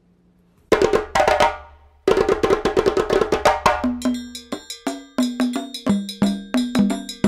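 Near silence for under a second, then music of quick, struck percussion notes in a fast rhythm with a low bass underneath.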